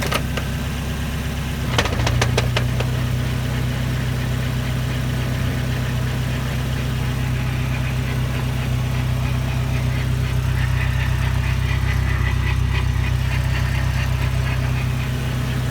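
A 1996 Mazda Miata's 1.8-litre four-cylinder engine and manual transmission running steadily in second gear, with a few quick clicks about two seconds in, after which the low hum steps up and holds. The owner attributes a weird noise from this drivetrain to the transmission.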